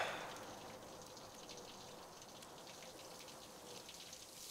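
A brief rush of noise fades out right at the start, then a faint steady hiss with light crackling: quiet background ambience.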